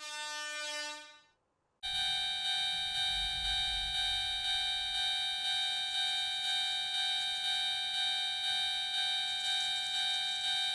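Japanese railroad crossing warning signal, clanging steadily in even pulses, which starts just under two seconds in. Before it, a short horn-like tone dies away about a second in.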